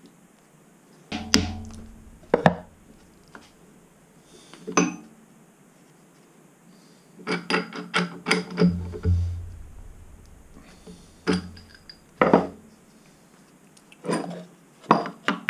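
Scattered sharp metal clanks and knocks, some in quick runs: steel parts being set in a milling machine vise and the vise tightened with its handle to clamp them.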